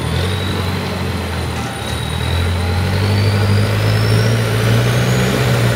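Boat engine running with a steady low drone that grows louder about two seconds in, accompanied by a thin high whine slowly rising in pitch.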